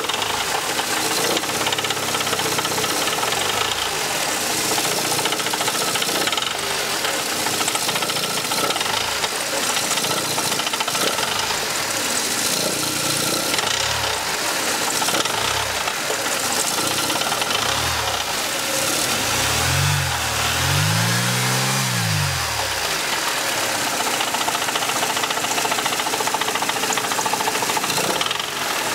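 Mercedes M102 2.3-litre four-cylinder engine running at low revs with a horrible rattling noise, which the owner's mechanic takes for a bottom-end fault such as a worn big-end bearing; exhaust, heatshields and flex plate have been ruled out. About twenty seconds in the engine note rises and falls briefly, as if revved.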